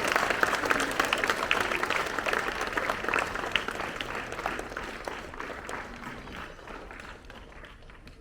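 Audience of schoolchildren and teachers applauding, the clapping dying away gradually over the several seconds.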